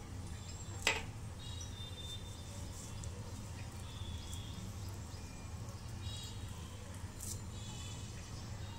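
Steady low hum with faint, repeated high chirping and one sharp click about a second in.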